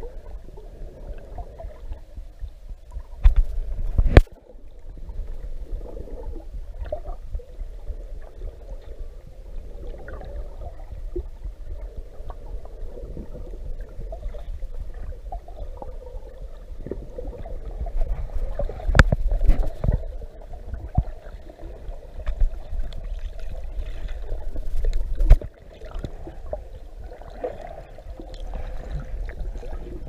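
Muffled underwater sound picked up by a camera in a waterproof housing: a constant low rumble of water with a murky wash above it, broken by a few sharp knocks, the loudest pair about three to four seconds in and more about two-thirds through.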